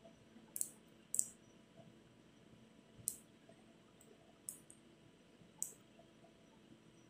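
About five sharp, single clicks at irregular intervals from a Mitutoyo digital micrometer's ratchet stop as the thimble is turned a little at a time. Each click is the ratchet slipping, which means the spindle is resting on the metal strip at the set measuring force.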